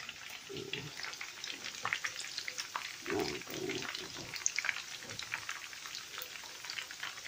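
Pork and vegetable meatballs deep-frying in hot vegetable oil: a steady crackle of small, irregular pops as they brown toward done.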